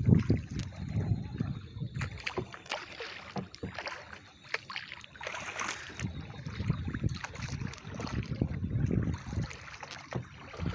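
A paddle dipping and pulling through river water from a small paddled boat, with water splashing and lapping unevenly and occasional light knocks.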